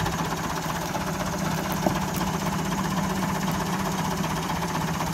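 Massey Ferguson 385 tractor's diesel engine idling steadily, with a single short click about two seconds in.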